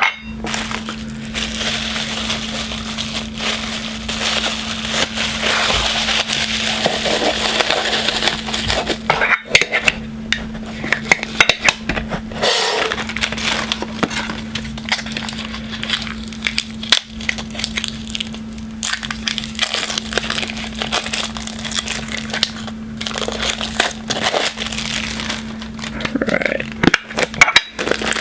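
Plastic packaging crinkling and crackling as a Funko Soda collectible is unwrapped by hand, with a steady low hum underneath.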